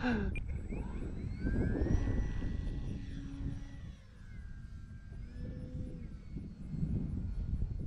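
Electric motor and propeller of a ParkZone Sport Cub S2 RC plane whining as it takes off and climbs away. The pitch rises over the first two seconds, then falls and fades after about four seconds. A low wind rumble on the microphone runs underneath.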